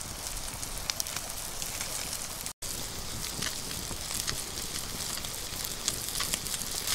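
Wood campfire crackling, with scattered sharp pops over a steady hiss and sizzle from whole fish grilling on a split-bamboo rack above the flames. The sound cuts out for an instant about two and a half seconds in.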